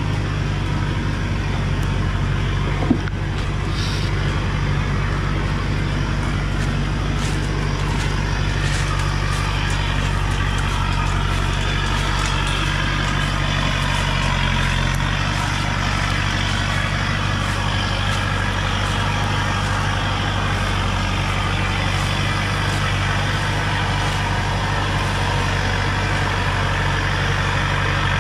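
Diesel engine of a Thaco Forland truck running steadily under a heavy load of acacia logs, a low even drone. One sharp click about three seconds in.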